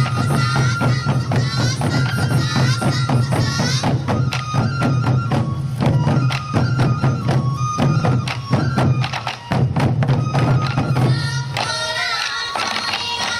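Sansa odori festival music: rapid taiko drum strikes under a yokobue bamboo flute melody with wavering trills. About eleven and a half seconds in the drumming drops away, leaving the flute and other pitched tones.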